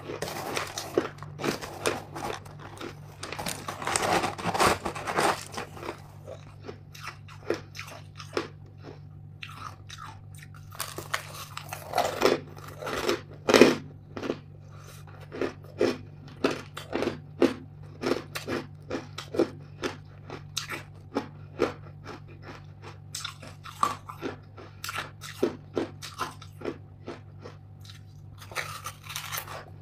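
Close-up crunching and chewing of hard frozen buckwheat ice chunks: dense bursts of sharp crunches as mouthfuls are bitten, settling into steady chewing crunches about two a second. A low steady hum runs underneath.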